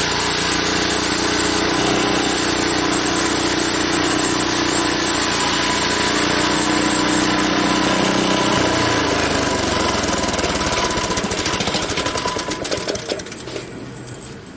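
Sawmill engine running steadily through a cut into a log, then slowing and fading away over the last few seconds as the cut finishes.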